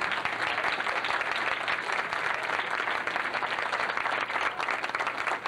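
A room of guests applauding: many people clapping at once in a dense, steady patter.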